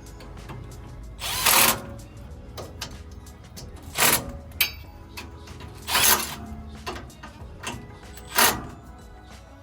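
A hand or power tool running down bolts in four short bursts about two seconds apart, with faint clicking between them: fasteners being tightened as the brake rotor and caliper go back on.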